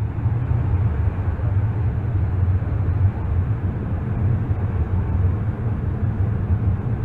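Steady low rumble inside a light aircraft's cockpit in flight on approach, with airflow and airframe noise mixed together and no clear engine note.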